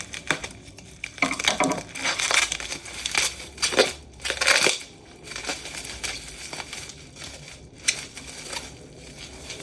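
Packaging being unwrapped by hand: crinkling and crushing in irregular bursts, busiest in the first half and sparser later.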